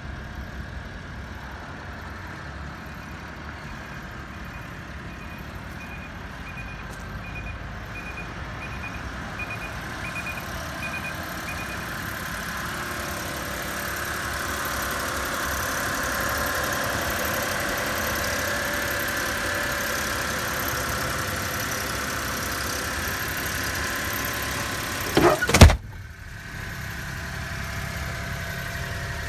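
Mitsubishi Minicab kei truck's small three-cylinder engine idling steadily, louder from about halfway through. A faint ticking about twice a second runs through the first half, and a sharp, loud thump comes near the end.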